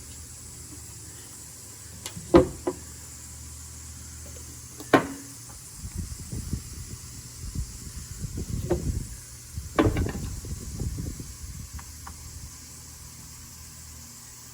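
A few sharp knocks and clacks, about five in all, with a stretch of rustling and handling noise in the middle, over a faint steady hum.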